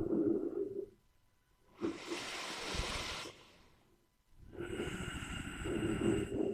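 A person snoring close to the microphone: a rattling snore that dies away about a second in, a pause, a long breathy rush of air, then another rattling snore near the end.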